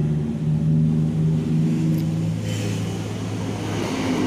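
Truck engine running steadily, a low hum that drops slightly in pitch about two and a half seconds in.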